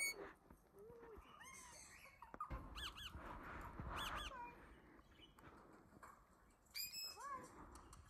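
Indian ringneck parakeet chirping: a string of short calls that arch up and down in pitch, loudest at the very start and again near seven seconds.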